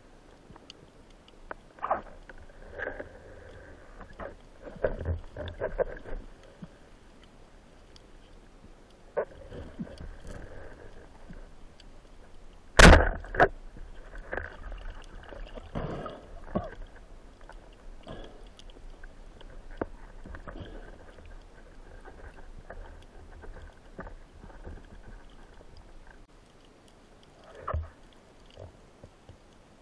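Underwater sound of a spearfisher swimming, with irregular swishes and knocks of water moving around the camera. About 13 seconds in, one sharp loud crack: a band-powered speargun firing its shaft.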